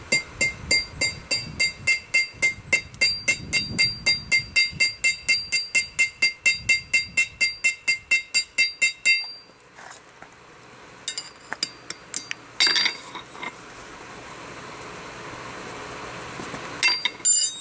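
Hand hammer heading a hot nail in a nail header on an anvil: steady, even blows, about four a second, each with a bright metallic ring. They stop about nine seconds in and give way to a few lighter clinks.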